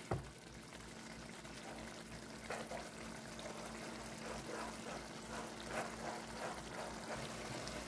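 Tomato stew base simmering and frying in oil in a pan: faint, quiet bubbling with scattered soft pops, over a low steady hum.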